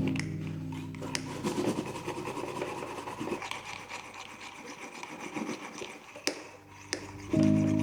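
Soft background music that stops about a second in, giving way to an uneven rubbing and scraping sound, with two sharp clicks near the end before the music comes back.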